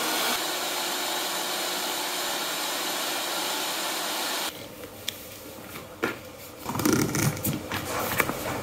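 Airless paint sprayer's electric pump running steadily with its suction tube in a bucket of paint, cutting off abruptly about halfway through. After it, quieter clicks and handling knocks.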